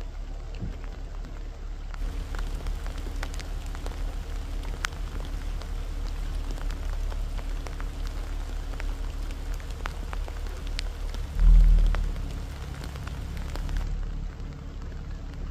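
Light rain pattering, with scattered sharp drop ticks over a steady low rumble. A brief loud low thump comes about eleven and a half seconds in.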